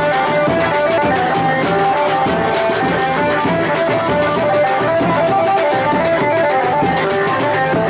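Live band-baaja music: a drum beating steadily under a quick melody of short stepping notes, at a steady loudness throughout.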